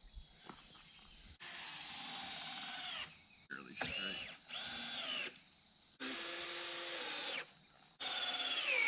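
Cordless drill running in four short bursts of one to two seconds each, fastening the end floor truss to the top plate of the basement wall; its pitch drops as the last burst stops.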